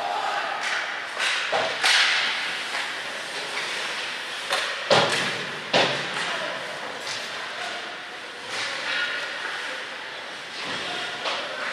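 Ice hockey play echoing in an arena: skates hissing and scraping on the ice, broken by sharp knocks of sticks and puck against the boards, the loudest about five and six seconds in, with calls from players and spectators in the hall.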